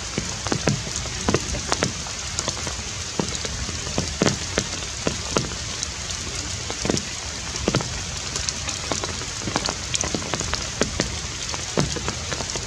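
Steady rain falling, with louder single drops landing close by at irregular moments.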